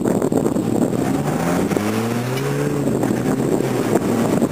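Off-road SUV engine working under load as it climbs a steep gravel slope; its note swells about a second in and fades again near the end. Wind buffets the microphone throughout.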